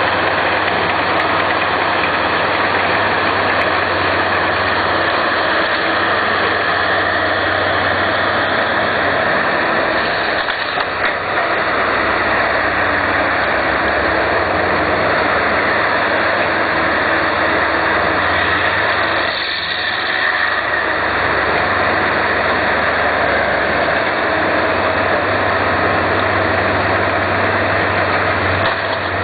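Diesel engine of a Timbco tracked feller-buncher running steadily as the machine works its tree shear, easing off briefly twice.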